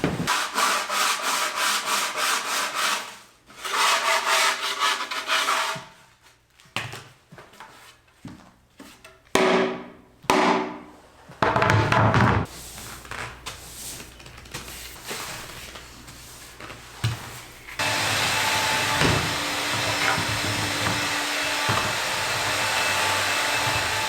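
Rough bark being scraped off a piece of wood: rapid, rhythmic rasping strokes, then slower irregular scrapes. About three-quarters of the way through, a steady, even noise sets in.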